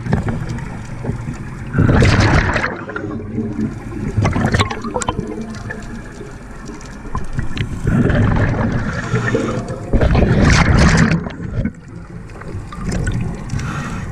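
Underwater bubbling and gurgling from a scuba diver's exhaled breath, coming in loud surges every few seconds with a low rumble between them.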